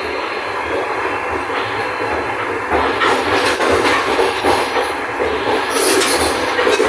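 Express passenger train's wheels clattering over the rail joints, over a steady rumble that grows louder about three seconds in.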